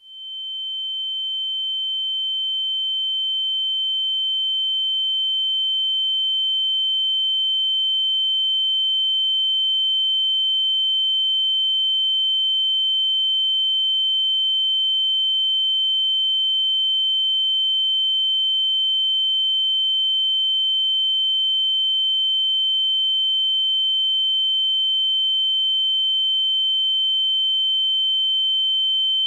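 Electronic beep sound effect: one continuous high-pitched tone at a fixed pitch. It swells up from nothing over the first few seconds, then holds steady.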